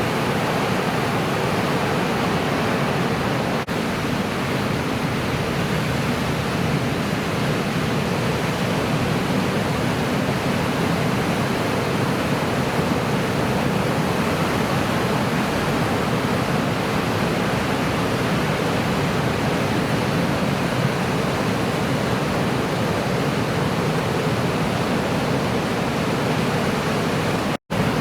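Steady rush of ocean surf mixed with wind on the microphone, an even noise without any clear separate wave breaks. It cuts out briefly near the end.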